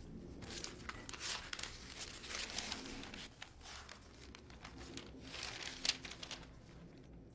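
Paper pages rustling and crinkling as a sheaf of papers is leafed through by hand, in a run of short, quiet rustles.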